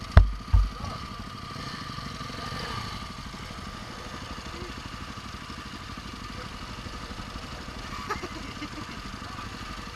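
Vehicle engine running steadily with an even low rumble. Two heavy thumps come in the first second.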